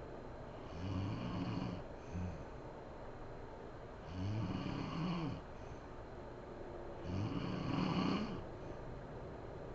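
A sleeping woman snoring: three drawn-out snores about three seconds apart, each with a low, wavering pitch, the first followed by a brief extra snort.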